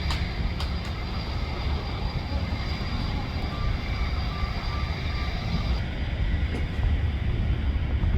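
Aircraft engine noise from a plane at the airport: a steady low rumble with a faint high whine above it.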